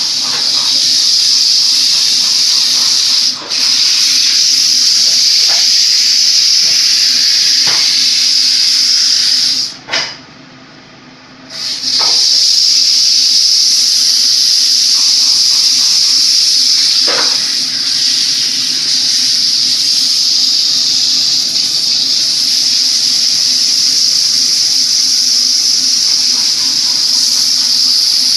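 A loud, steady hiss that cuts out for about two seconds near the middle, with a faint steady hum and a few faint knocks under it.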